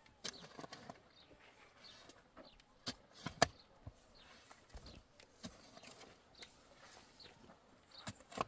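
Quiet background with a few scattered sharp knocks or clicks, the loudest about three and a half seconds in.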